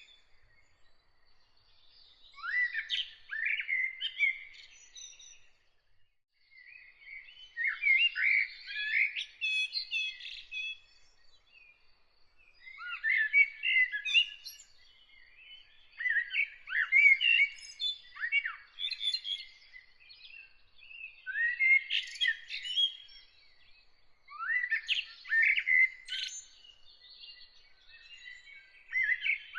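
A songbird singing in separate short phrases of quick chirps and falling whistles, about one phrase every four to five seconds with short pauses between. Behind it runs a faint, high, rapidly pulsing note.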